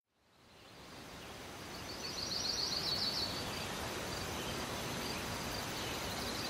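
Outdoor ambience fading in from silence as a steady hiss of air. About two seconds in, a bird sings a quick run of high repeated chirps for a little over a second.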